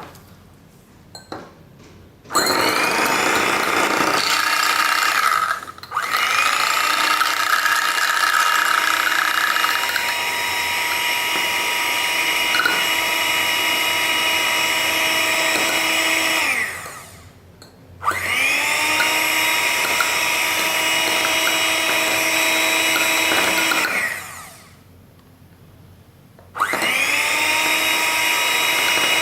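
Electric hand mixer (egg beater) whisking a small bowl of mixture. It runs in a steady high whine, switched off and on several times, with its pitch rising at each start and sagging as it stops.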